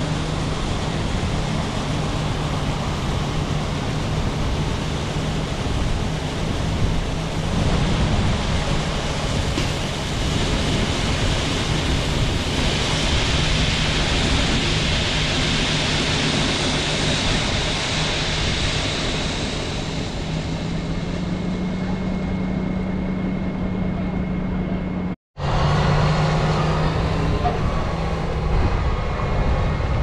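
Heavy diesel farm machinery running steadily at harvest, a constant low engine hum under a broad wash of machine noise. The engine note steps up slightly about 21 seconds in, and the sound drops out for an instant just after 25 seconds.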